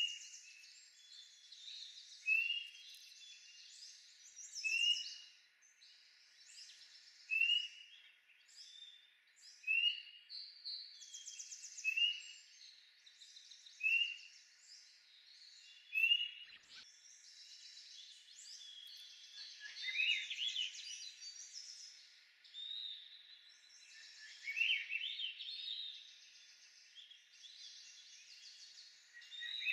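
Songbirds singing: one bird repeats a short clear note about every two seconds for the first half, while others chirp higher in the background. Two quicker, more elaborate song phrases come around two-thirds of the way through and again near the end.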